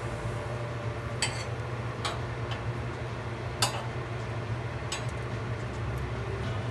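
Metal kitchen tongs clicking against a gas-stove grate and the chile halves as the peppers are turned over the flame: a few sharp clicks, the loudest about three and a half seconds in, over a steady low hum.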